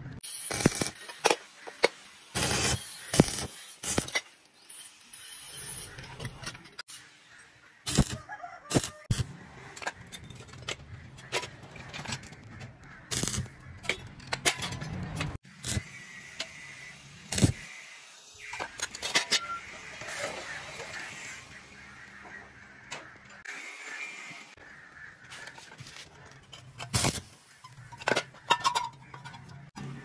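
Sharp metallic clinks and scrapes as a screwdriver is worked against a small welded steel-plate box. Partway through comes several seconds of steady crackling hiss from stick (electrode) arc welding on a steel frame. More clinks follow near the end.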